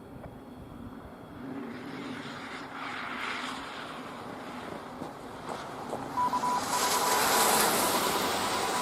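A vehicle passing, its noise swelling to a peak about seven seconds in. A steady high electronic tone with a few brief breaks comes in about six seconds in.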